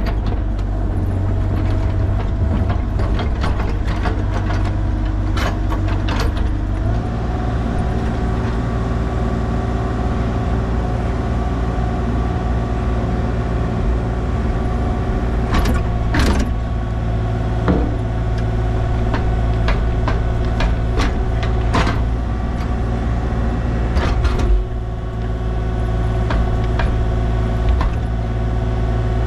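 A heavy machine's engine running steadily, stepping up in speed about seven seconds in and dropping back near the end, with scattered metal clanks and knocks.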